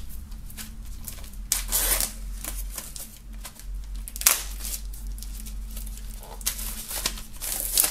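Plastic shrink-wrap film crinkling and tearing as it is peeled off a CD album package by hand, in irregular rustles with a few sharper crackles.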